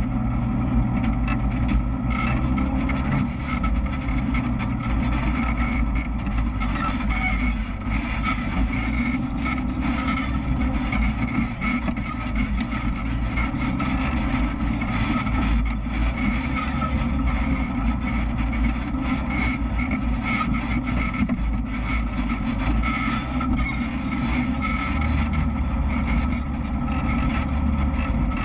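Off-road vehicle engine running steadily as it drives along a dirt trail.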